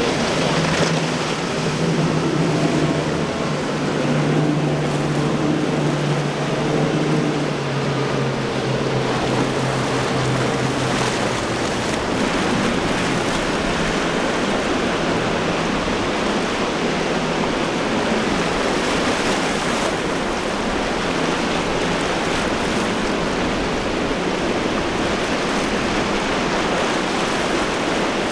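Triple Mercury outboard engines on a passing center-console boat droning over the rush of surf, their pitch dropping slightly about eight seconds in before they fade out. After that there is a steady rush of breaking waves and churning water.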